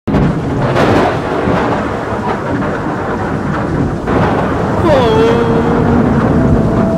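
Thunderstorm sound effect: steady rain with rolling thunder and sharp cracks about a second in and about four seconds in. From about five seconds a tone slides down and settles into steady held notes.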